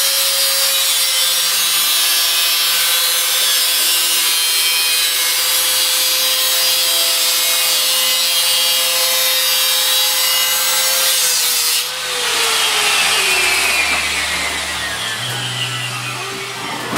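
Angle grinder running under load on steel bodywork: a steady motor whine over the harsh hiss of the disc on metal. About twelve seconds in, the whine drops in pitch as the grinder slows, and the sound tails off near the end.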